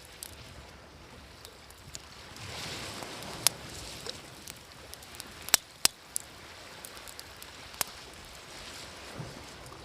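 Wood fire crackling with scattered sharp pops over the wash of waves on a shore; the surf swells about two and a half seconds in and again near the end.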